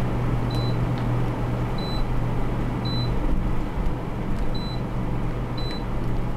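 Short high electronic beeps repeating evenly, a little over a second apart, over a steady low electrical hum and hiss.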